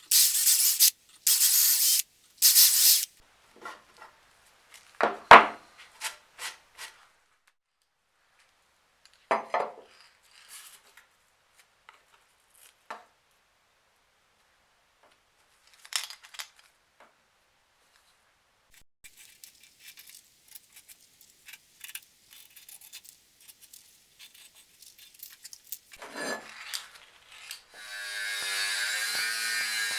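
Workshop sounds: a few short hissing bursts, then scattered knocks, taps and clatter of tools and wood being handled, with one sharp knock about five seconds in. A small power tool starts running near the end.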